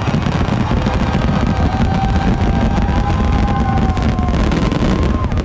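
A fireworks display in a dense, continuous barrage of bursts and booms, with long whistling tones above it. It cuts off suddenly at the end.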